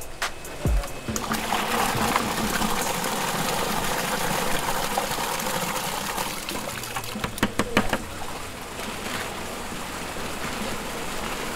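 Water and live shiners poured from a bucket into a plastic-lined shipping box: a steady splashing pour, with a few sharp knocks about seven seconds in.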